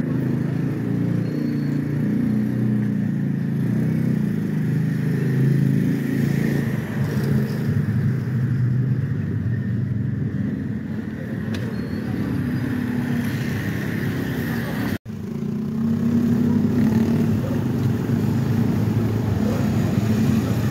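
Road vehicle engine running steadily, with road noise, broken by a momentary silent gap about three-quarters of the way through.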